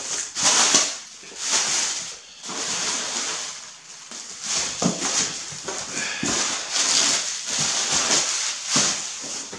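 Plastic packing bags and air cushions crinkling and rustling in irregular bursts as they are pulled out of a cardboard box.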